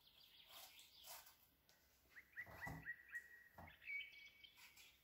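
A bird chirps a quick run of short, repeated notes about halfway through, then a few higher notes, over faint scraping strokes of a knife peeling an apple.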